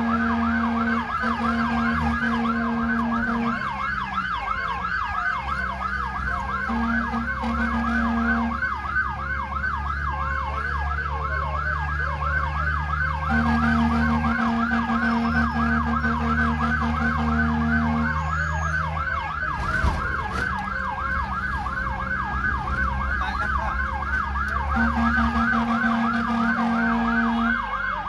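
Emergency vehicle's electronic siren in a fast yelp, sweeping up and down a few times a second without pause, over a low engine rumble.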